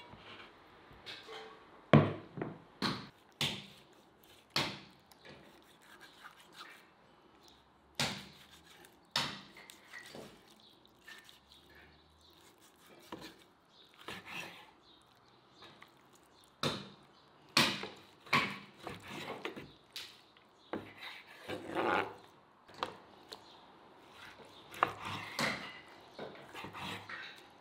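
Kitchen food-preparation sounds: irregular knocks and taps of utensils and food being handled, with some rubbing in between. The loudest knock comes about two seconds in.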